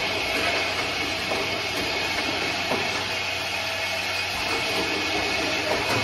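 Automatic lighter-fluid filling and capping line running: a steady mechanical clatter and hiss with a few light clicks.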